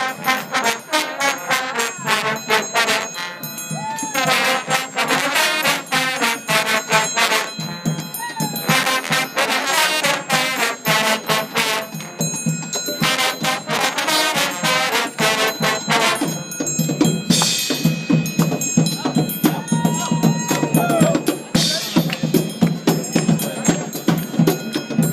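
Trombone choir playing a tune together. In the second half, drums and percussion come in and keep a steady beat under the brass.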